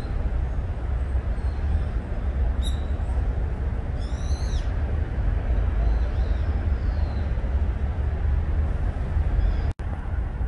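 Outdoor ambience: a steady low rumble with a few short high bird chirps, the clearest a quick run of calls about four seconds in. The sound cuts out for an instant near the end.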